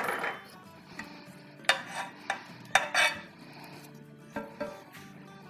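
Metal kitchen tongs clicking and knocking against a roasting pan and serving platter as roasted potatoes are lifted out, several separate sharp clacks at uneven intervals.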